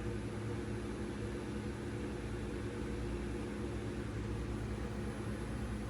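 Steady low machine hum with an even background hiss.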